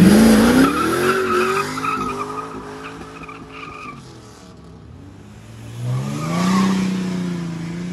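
Pontiac Firebird's engine revving hard as the car launches with its rear tyres spinning and squealing, the engine pitch climbing and the screech fading away over about four seconds as it drives off. About six seconds in, another engine revs up and holds.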